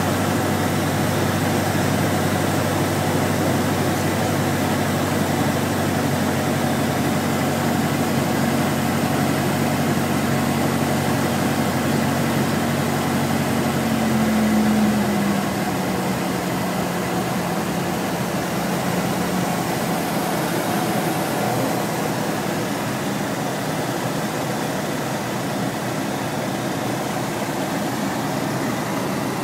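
Robin DR400's 108 hp piston engine and propeller running steadily. About fourteen seconds in it briefly gets louder, then its pitch drops as it is throttled back, and it runs on at lower revs.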